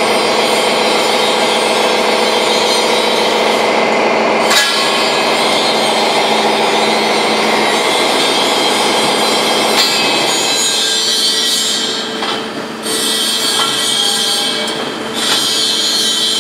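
Loud, steady machine-shop noise from an automatic loading system for long steel tubes working at a CNC lathe, with a sharp knock about four and a half seconds in and another near ten seconds. After the second knock the noise eases a little and a steady hum-like tone sets in.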